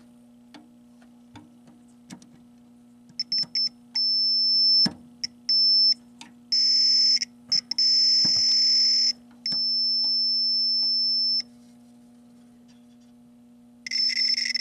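Logic probe beeping as its tip is touched to connector pins on a pinball machine's circuit board: short high beeps, then longer steady tones, with a rougher buzzing tone for about two seconds in the middle; each tone signals the logic state of the pin being probed. A few sharp clicks from the probe tip and a steady low electrical hum run underneath.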